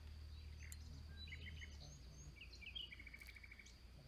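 Small birds chirping: scattered short high calls and a quick trill about three seconds in. Beneath them a low rumble cuts off about two seconds in, and a faint steady high tone runs on.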